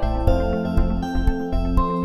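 Background music with held chords over a steady beat of about two beats a second.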